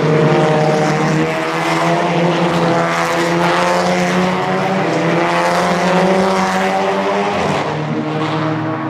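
Audi TT Cup race cars' turbocharged four-cylinder engines running hard as several cars pass in quick succession, a continuous engine drone whose pitch drifts up and down as they brake and accelerate, dipping briefly near the end.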